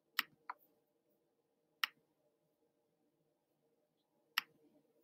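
Four sharp, isolated clicks at uneven intervals, over a faint steady hum of room tone.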